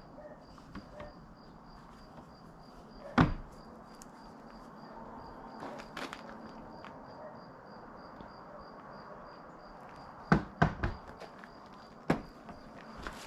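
Several sharp knocks, the loudest about three seconds in and a quick run of three near the ten-second mark, over a faint high chirping that repeats evenly about three times a second, like a cricket.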